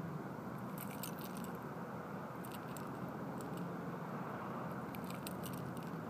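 Light clicking and rattling of fishing tackle as a small herring is handled on the hook, in short clusters about a second in, again at about two and a half seconds, and around five seconds, over a steady low rushing noise.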